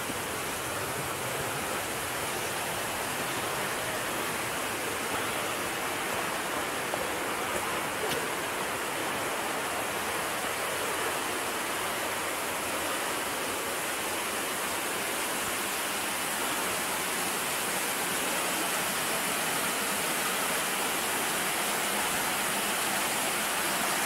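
Steady rushing of flowing water, a continuous even wash of noise that grows slightly louder toward the end.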